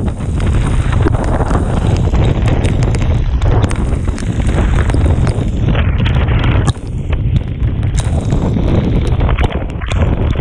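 Storm wind gusting hard across the microphone in heavy rumbling buffets, with sharp ticks of rain striking it throughout and a brief lull about two-thirds of the way through.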